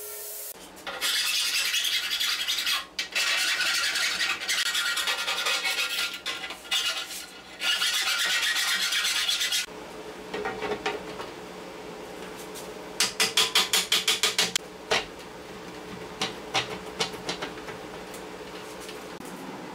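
MIG welder running a weld on a steel plate: a steady crackling hiss for about nine seconds, broken by a few brief pauses. The welding then stops, and steel blocks are handled on the steel tabletop: scattered metallic clinks and a quick rattling run of clicks, over a faint steady hum.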